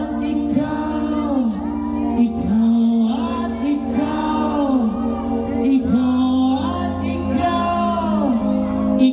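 Live pop band playing a song, with singing over electric guitars, keyboard and drums, amplified through the stage PA and heard from within the audience.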